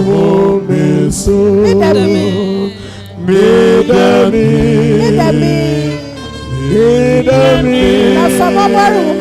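Loud gospel music, a voice singing with vibrato over sustained keyboard and bass notes.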